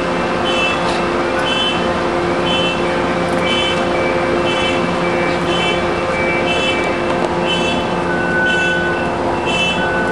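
Electronic warning beeper on a stopped Coaster commuter train, sounding a short high beep about once a second while the car doors stand open, over the steady hum of the idling train. A second, lower beep joins in near the end.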